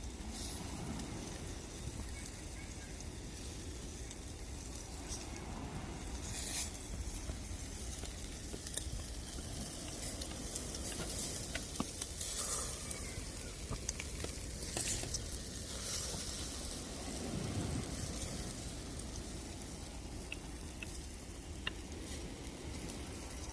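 Marinated pork sizzling over a charcoal grill, a steady crackling hiss with a few sharp clicks now and then.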